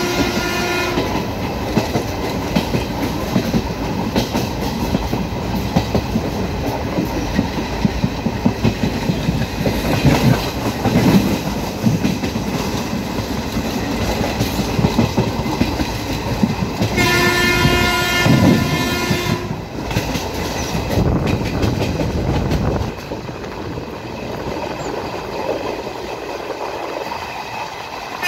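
Express passenger train running at high speed, heard from inside a coach: steady wheel and track rumble with clatter over the rails. The WAP-5 electric locomotive's horn sounds briefly at the start and again for about two seconds around two-thirds of the way through.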